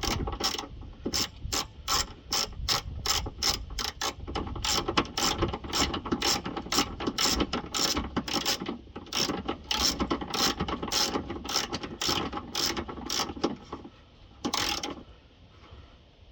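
Hand ratchet wrench clicking steadily, a couple of clicks a second, as a bolt on the car's exhaust is tightened. The clicking stops near the end after one last stroke.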